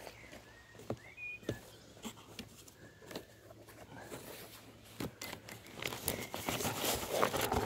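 Handling noise from a bent-wire cactus grabber and a gloved hand working among foam packing in a cardboard box: scattered light clicks and rustling, growing busier and louder near the end as the grabber closes around the cactus.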